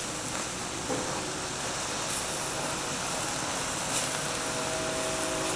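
Tofu scramble sizzling with a steady hiss in a hot stainless steel skillet while a silicone spatula stirs it, with light scrapes or taps of the spatula about a second in and again near four seconds.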